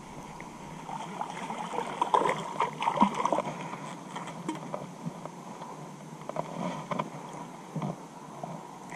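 Water splashing and sloshing as a hooked bass is reeled in and landed, followed by scattered short clicks and knocks of handling.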